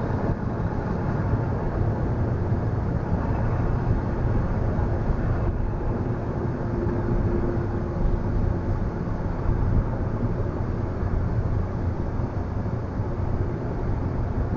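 Steady loud noise of automatic car-wash machinery heard from inside the car's cabin, deep and even, with a faint hum that comes up about halfway through.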